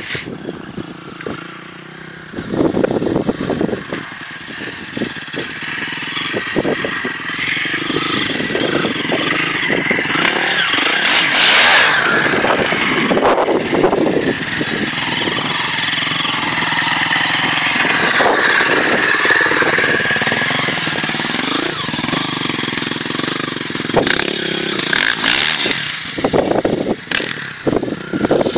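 Honda CRF450R dirt bike's single-cylinder four-stroke engine revving and being ridden, rising and falling in pitch as the throttle opens and closes, loudest about twelve seconds in.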